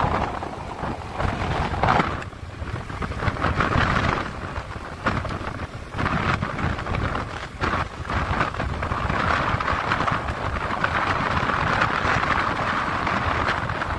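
Wind buffeting the microphone with rumbling road noise while travelling along a rough road, gusting unevenly at first and settling into a steadier hiss after about nine seconds.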